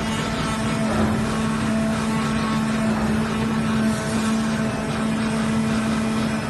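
A CNC cutting machine running while its cutting head cuts shapes in a sheet of plastic or cloth: a steady mechanical drone with one constant held tone.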